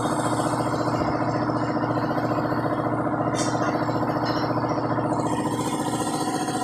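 A motor running steadily at constant speed, a low even hum with a fast, regular pulse.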